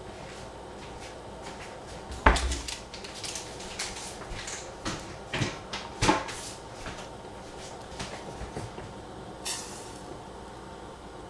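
Scattered knocks and clatters of kitchen work, such as utensils, pots or cupboard doors: the loudest knock about two seconds in, a few more around five to six seconds, and a short high scrape near the end.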